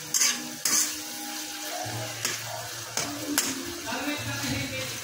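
Okra, tomato and onion sizzling as they fry in a generous amount of oil in a metal wok, with a spatula stirring and scraping against the pan in several irregular strokes.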